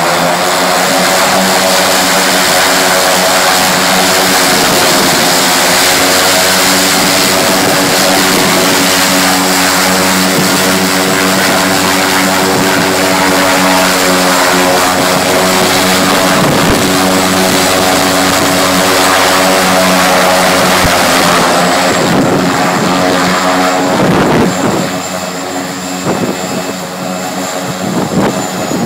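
Pilatus PC-6 Porter's propeller and turbine engine running loud and steady with a deep droning hum, the propeller in reverse pitch to push the aircraft backwards. Near the end the power comes down and the sound quietens, leaving a high whine.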